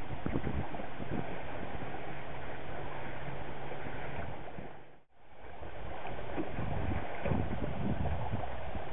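Wind buffeting the microphone over the rush and slap of choppy water along the hull of a small sailboat under way. The sound dips out briefly about five seconds in, then picks up again.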